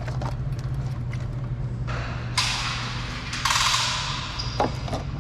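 Hand work on small parts: scattered light clicks and knocks, and two longer hissing rustles about two and three and a half seconds in, over a steady low hum.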